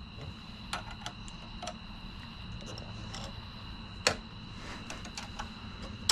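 Scattered light metallic clicks and ticks from hand tools working on a golf cart starter/generator, with a sharper knock about four seconds in and another at the end.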